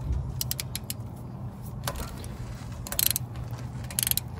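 Ratchet wrench clicking in short bursts of rapid clicks, about a second or so apart, as 10 mm bolts are backed out.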